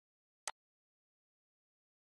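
A single short mouse-button click about half a second in, in otherwise dead silence.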